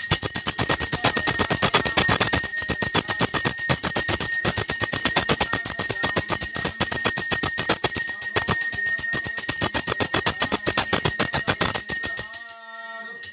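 A puja hand bell (ghanta) rung rapidly and without a break, ringing on, as the aarti lamp is waved before the deity. The ringing stops about twelve seconds in.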